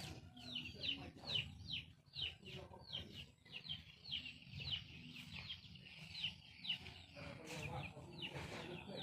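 A bird calling over and over: short chirps that drop in pitch, about two or three a second, thinning out about seven seconds in.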